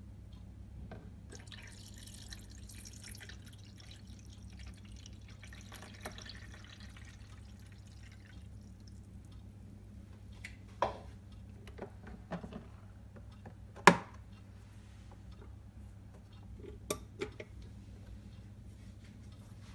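Liquid trickling for several seconds, then a handful of sharp knocks and clinks, the loudest about two-thirds of the way through, from the coffee maker and its stainless steel travel mug being handled. A steady low hum runs underneath.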